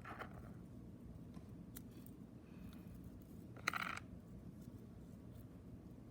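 Small handling sounds of a cassette being worked on by hand: a faint click at the start, a few light ticks, and one short, sharper click-and-rustle a little past the middle, over a low steady hum.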